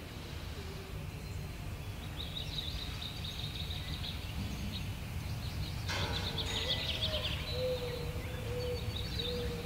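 Birds chirping and twittering over a steady low background rumble, with a lower wavering whistled note in the last few seconds.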